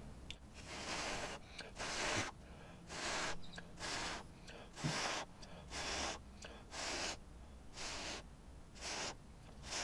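A person blowing through pursed lips in short, faint puffs, about one a second, ten times over, pushing wet acrylic paint outward by mouth.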